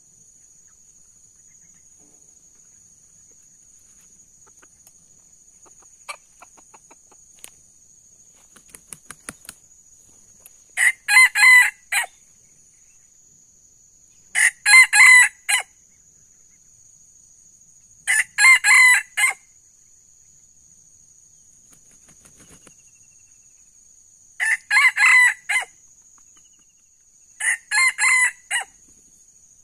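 Red junglefowl rooster crowing five times, each crow short and clipped at about a second long, spaced a few seconds apart.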